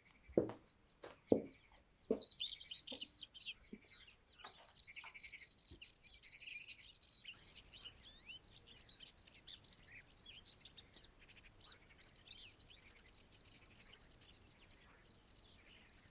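Three heavy thuds about a second apart in the first two seconds, then birds chirping and singing, busiest in the first half, over a steady high pulsing trill.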